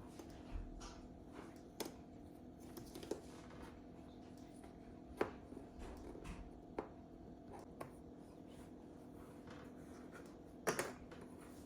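Cardboard jigsaw puzzle pieces being handled and set down on a table: scattered light clicks and taps, the sharpest about five seconds in and a double tap near the end, over a faint steady hum.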